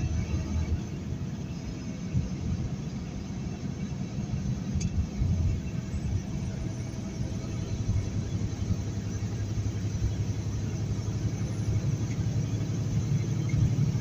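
Steady low rumble of a heavily loaded semi truck driving at highway speed on a slushy road, heard from inside the cab. There is a single sharp click about five seconds in.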